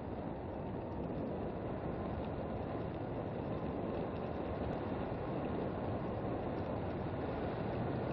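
Steady rumble of a dog scooter rolling fast over a rough wet lane, with wind on the microphone. It grows slightly louder as the scooter speeds up.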